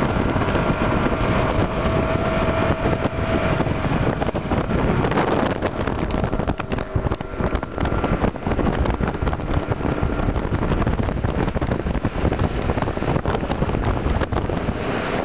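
Mercury 115 hp outboard motor running with the boat under way, buffeted by wind on the microphone. A steady engine tone is plain for the first few seconds, after which the wind noise takes over.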